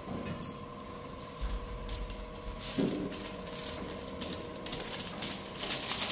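A steady mechanical hum with irregular rustling and scratching handling noises over it, loudest in the last second.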